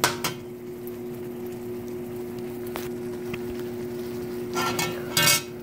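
Metal spoon stirring a red sauce simmering in a pan, with a few sharp clicks of the spoon against the pan and two short scraping bursts near the end. A steady low hum runs underneath.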